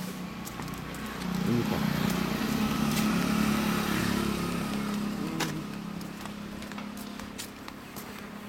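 A motor vehicle's engine passing on the road, swelling about a second in and fading after about five seconds.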